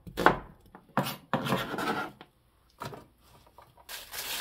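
Kitchen knife slicing an onion on a cutting board, a couple of cuts in the first second, then rubbing and handling sounds. Near the end a plastic bag crinkles.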